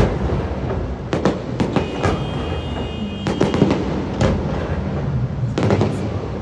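Fireworks bursting overhead: clusters of sharp crackling pops and bangs over a continuous low rumble. A brief high steady tone sounds from about two seconds in to three and a half.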